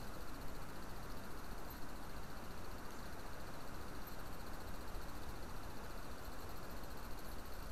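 Wind on the microphone: a steady, low rushing noise with no distinct events.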